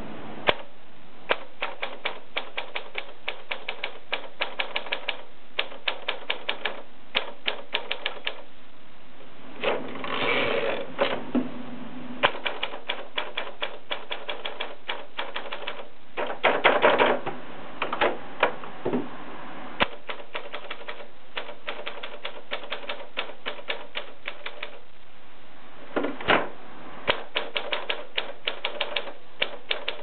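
A 1968 Monpti portable manual typewriter being typed on: quick runs of crisp keystroke clacks with short pauses between them. There are two longer, denser rattling bursts, one about a third of the way through and one just past halfway.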